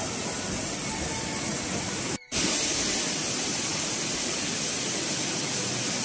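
A river rushing over rocks, a steady hiss of running water that breaks off for a moment a little over two seconds in and then goes on.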